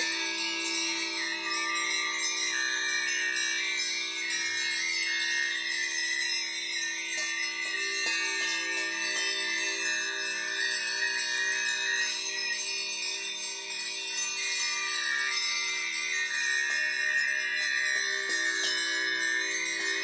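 Small brass handbells ringing over the steady, slowly pulsing hum of metal singing bowls, with a high wavering melody from a small wind instrument.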